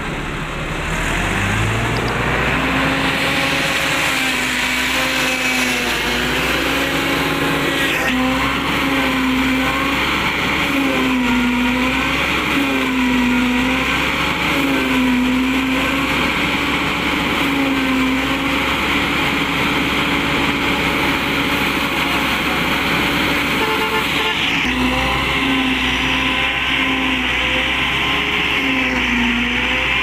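Diesel tractor engine running a PTO-driven Celmak stationary silage chopper while corn stalks are fed in. The engine revs up about a second in, then its note repeatedly dips and recovers every second or two as the chopper takes load.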